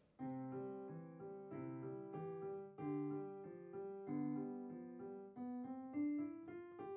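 Piano music that starts just after the beginning and carries on throughout: a melody of struck notes over lower sustained notes.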